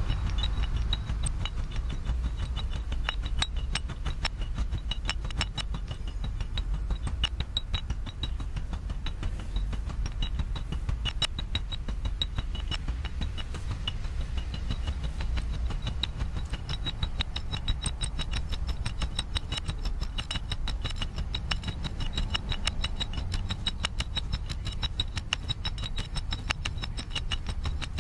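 Live-looped, granular-processed percussion: a dense stream of fast clicks and clinks with faint ringing tones, over a steady low rumble.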